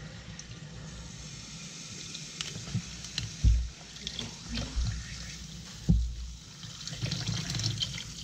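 Water running from a tap into a sink as plastic pop tube fidgets are rinsed, with a few dull thumps from handling them about halfway through.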